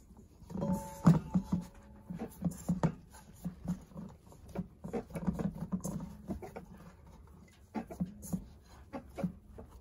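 Hands kneading soft bannock dough in a stainless steel mixing bowl: many quick, irregular squishing and pressing strokes.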